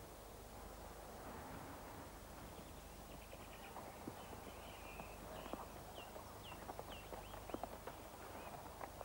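Faint hoofbeats of a ridden horse walking on a grassy track, starting a few seconds in and coming more often towards the end, with small birds chirping in short rising and falling notes over them.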